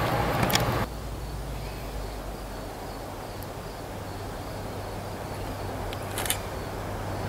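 A passing train's sound cuts off abruptly about a second in. Then a steady low hum with insects chirping faintly and regularly over it, and one short click about six seconds in.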